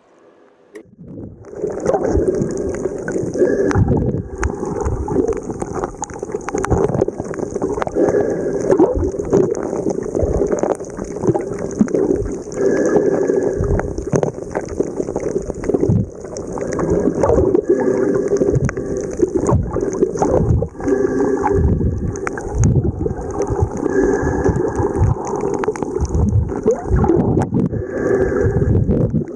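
Water sloshing and bubbling around a snorkeler's camera at the surface, with many irregular knocks and thumps over a steady hiss. It comes up suddenly about a second in.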